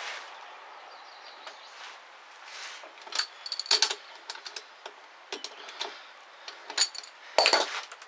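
Sharp metallic clinks and clicks from a lathe chuck and workpiece being handled while a small brass muzzle brake is reset to stick out further from the jaws. The clinks come in scattered groups, the loudest cluster near the end.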